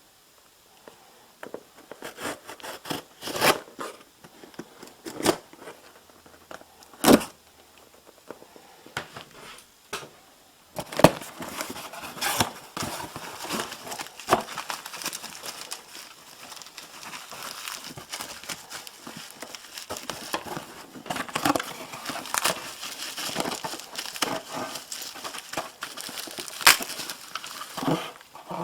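Packaging being opened and handled by hand: plastic and cardboard crinkling and tearing, with scattered knocks and clicks. The rustling is sparse at first and turns near-continuous about eleven seconds in.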